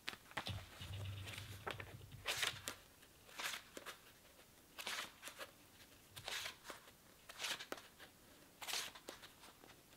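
Faint paper rustling from a paperback manga volume being handled and its pages leafed: a series of short swishes, about one every second or so.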